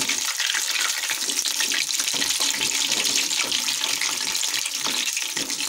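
Buckwheat-flour potato pakoras deep-frying in hot oil: a steady sizzle with fine crackling as they are turned over in the pan.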